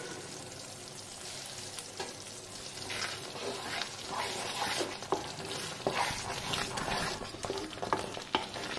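A phool makhana and pea curry simmering in a pan with a steady sizzle, then from about three seconds in a spoon stirring it, with repeated scrapes and knocks against the pan.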